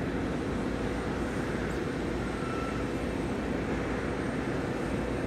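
Steady rumble of an Embraer 195's two GE CF34 turbofan engines at low power as the airliner taxis after landing.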